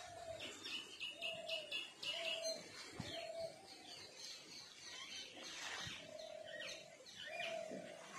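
Birds calling: a short mid-pitched call note repeated about every second, over clusters of quick, high chirps.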